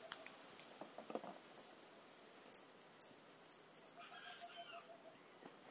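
Faint light clicks and taps of soft-boiled eggs knocking against each other and a plastic bowl as they are lifted out of cold water, with a few drips. A faint thin squeak about four seconds in lasts about a second.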